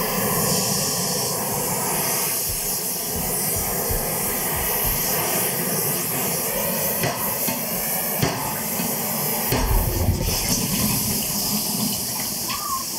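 Gas torch flame hissing steadily as it heats a steel motorcycle foot peg bracket in a vise. Near the end, water runs and steam hisses as the hot part is cooled in a sink.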